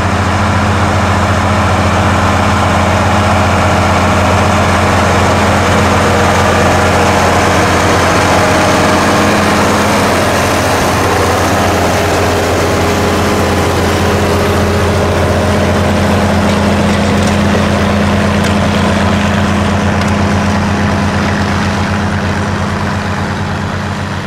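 John Deere 6030's turbocharged six-cylinder diesel running steadily under load while pulling a moldboard plow through the soil. It has a low, even engine note that fades a little near the end as the tractor moves away.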